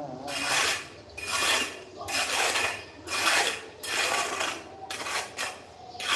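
A hand tool scraped in repeated rasping strokes against the column's ornamental molding, about seven strokes in six seconds.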